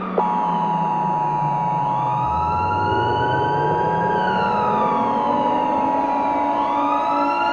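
The Emergency Alert System attention signal, a steady harsh two-tone chord, starts a moment in and holds. Under it a siren wails slowly up and down, rising and falling about every four seconds.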